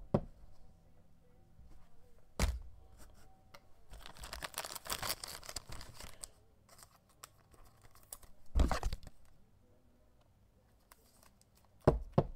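Trading cards handled in plastic: a soft plastic card sleeve crinkling for a couple of seconds in the middle, with a few sharp clicks and knocks of hard plastic card holders being set down or snapped shut, the loudest about two-thirds of the way through.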